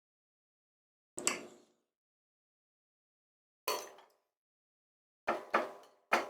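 Eating sounds: five short bites or chews of fried, breaded food, each rising sharply and dying away within half a second, the last three coming close together near the end.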